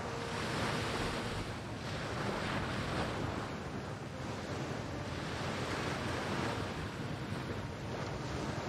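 Small waves washing onto a sandy shore, the surf swelling and easing every second or two, with wind rumbling on the microphone.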